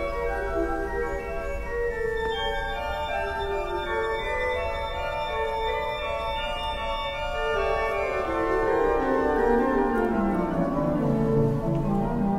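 Pipe organ playing a piece in several voices, sustained notes moving together. In the second half a line steps steadily downward into the lower register and the sound grows a little fuller.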